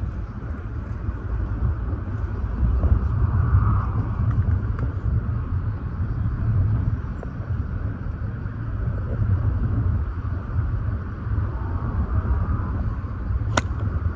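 Steady low rumble of strong wind buffeting the microphone, with a single sharp click near the end.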